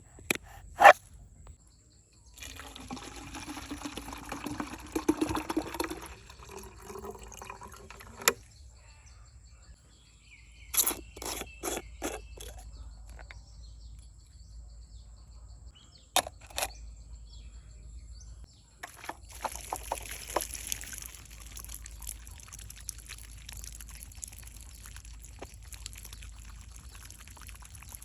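Water pouring and trickling in stretches, with sharp knocks and clicks from handling in between.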